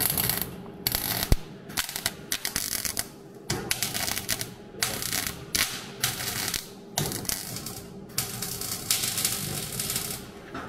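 MIG welder crackling in a string of short bursts, tacking and stitch-welding steel bracing into a car body, with a steady hum underneath.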